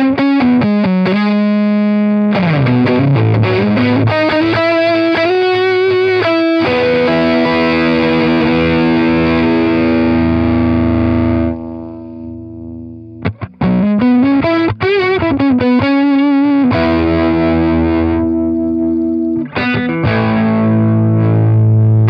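Electric guitar played through a Kernom RIDGE analog overdrive pedal: distorted chords and single notes with sliding bends. About halfway through a chord rings out and fades while the pedal's EQ knobs are turned, then the playing starts again.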